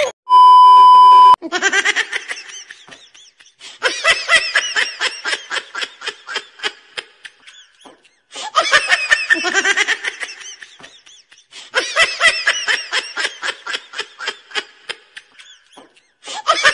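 A loud steady electronic beep lasting about a second, then a laughter sound effect: bouts of rapid, high 'ha-ha-ha' laughing that come back several times with short breaks between them.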